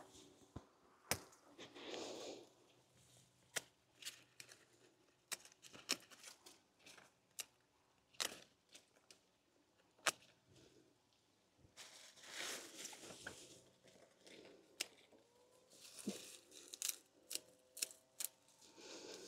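Coleus stems and dry hosta leaves being pulled up and torn off by hand: faint, scattered sharp snaps and clicks with a few short spells of leaf rustling.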